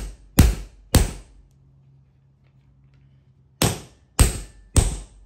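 Hammer striking a sacrificial bolt threaded into a steel drop-in concrete anchor, driving the anchor down into a drilled hole in a concrete floor. Sharp ringing blows about two a second: two, a pause of about two seconds, then three more.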